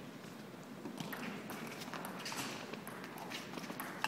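Table tennis ball ticking off bats and table in a serve and rally, a sharp click about every half second, over the faint hum of a large hall.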